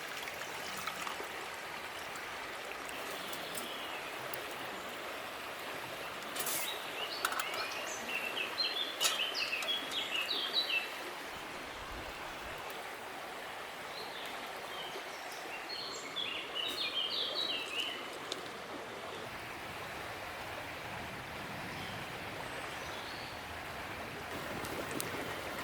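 Two bouts of rapid, high songbird twittering, about seven seconds in and again about sixteen seconds in, over a steady rushing background noise.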